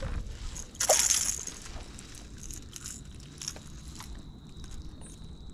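A small hooked fish splashing at the side of a kayak as it is lifted from the water about a second in, followed by scattered light clicks and knocks as it is handled.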